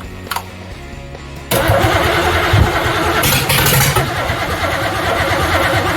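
Chevy 350 small-block V8 firing up about a second and a half in and running loudly, on only the fuel in the carburetor float bowls since there is no fuel pump yet.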